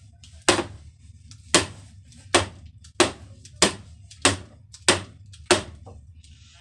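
A hollow wooden door being banged on eight times in a steady rhythm, about one blow every two-thirds of a second, each blow sharp with a short ring.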